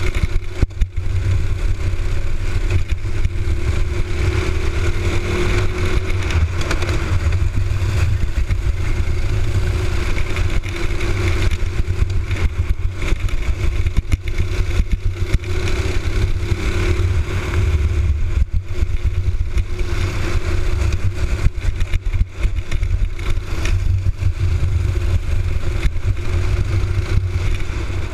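Honda single-cylinder four-stroke box-stock kart engine running at racing speed, its pitch rising and falling with the throttle through the corners, heard from the kart itself with heavy low rumble from the onboard microphone.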